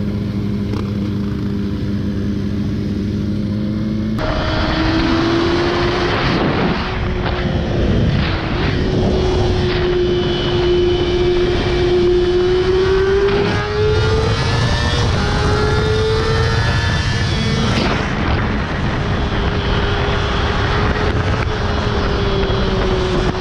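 Motorcycle engine running steadily under way, its note holding and slowly rising with a few brief dips, with rushing wind noise on the microphone that comes in suddenly about four seconds in.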